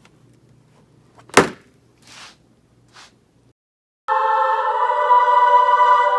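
A single sharp knock or thump about a second in, followed by two faint rustles. Background music starts about four seconds in.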